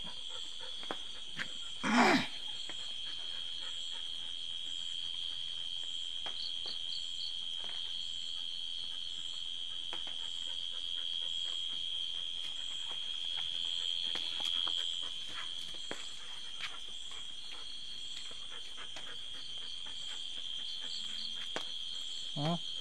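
Steady night chorus of crickets and other insects: a continuous high trill with fainter pulsing calls above it. One short, loud cry breaks in about two seconds in.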